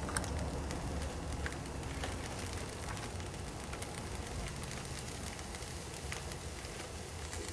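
Chopped onion sizzling in a hot skillet: a steady, faint frying hiss with scattered small crackles over a low hum.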